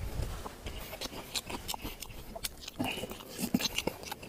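Close-miked eating sounds: a person chewing and sucking grilled fish off the bones, with many short wet mouth clicks and smacks and a few brief low mouth noises about three seconds in.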